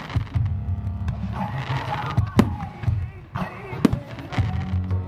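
Fireworks exploding over music, with two sharp bangs about two and a half and four seconds in and fainter pops between.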